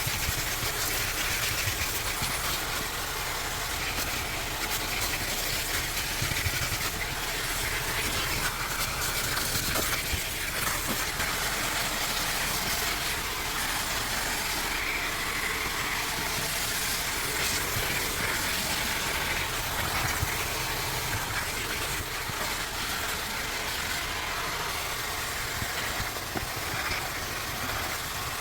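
Car-wash station vacuum running steadily, its hose sucking up dirt and grit from inside a car; a loud, even rushing noise.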